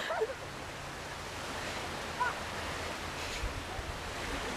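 Steady outdoor beach wash: small waves breaking on the shore, with wind buffeting the microphone.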